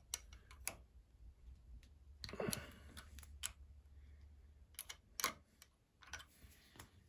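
Light metal clicks and taps from a wrench and an Allen key working the jam-nutted gib screws on a small lathe's tailstock. The clicks are scattered, with a short, slightly louder clatter about two and a half seconds in.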